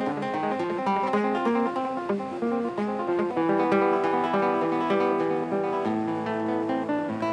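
Background music: a melody of plucked string notes with chords.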